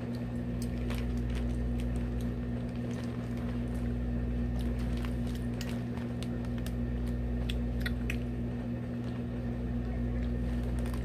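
A steady low hum with scattered small clicks and plastic crinkles, from a clear plastic zipper bag of jelly beans being handled.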